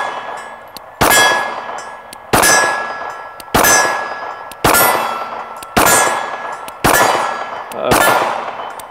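Glock 48 9mm pistol fired in slow, even single shots, about one a second, seven in all. Each shot is followed by the decaying ring of struck steel plate targets.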